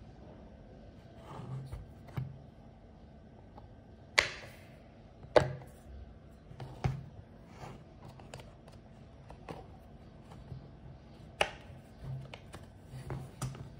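Hard plastic clicks and taps from a DeWalt Tough Case screwdriver-bit set being handled: bits in their plastic clips and the clear insert tray knocking against the yellow case. About five sharp snaps stand out, spaced one to four seconds apart, with softer ticks between.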